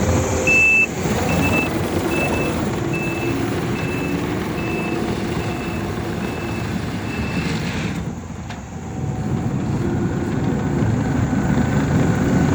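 Takeuchi TL12-R2 compact track loader running, its backup alarm beeping about once every 0.6 seconds for the first seven seconds while the machine reverses. The engine noise drops off around eight seconds, then picks up again.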